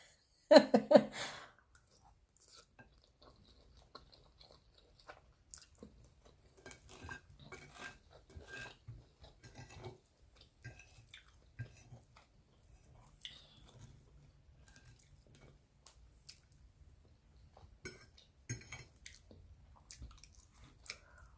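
A person eating spaghetti close to the microphone: soft, wet chewing and mouth smacks with scattered small clicks. There is a brief vocal sound about half a second in.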